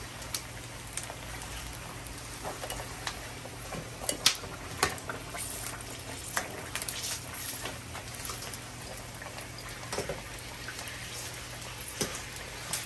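Hot oil sizzling and crackling around a large sheet of puffed pork skin deep-frying into chicharrón, with scattered sharp pops throughout, the loudest a little after four seconds in.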